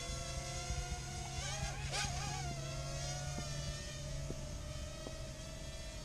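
Parrot Mambo minidrone's small electric motors and propellers whining at a steady pitch. About a second and a half in, the pitch swings sharply up and down for about a second as the motors change speed, then settles back.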